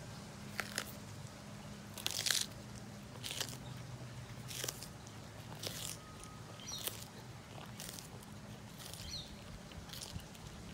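A sulcata tortoise biting and chewing a chunk of green bell pepper: sharp, wet crunches about once a second, the loudest about two seconds in.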